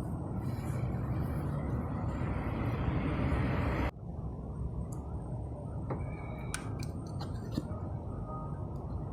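Fiat Punto engine running at idle, a steady low rumble. About four seconds in the sound changes abruptly and loses its upper hiss, and a few light metallic clicks follow.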